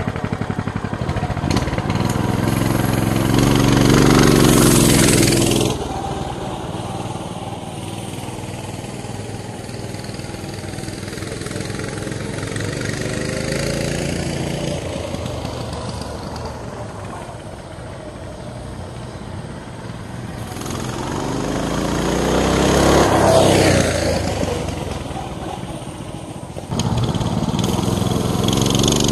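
The 6.5 hp single-cylinder engine of a Coleman BT200X mini bike, its throttle stop screw cut off, revving up as the bike pulls away and then fading as it rides off. It grows loud again and falls in pitch as the bike passes close by, about three-quarters of the way through. Near the end it is abruptly loud and close again.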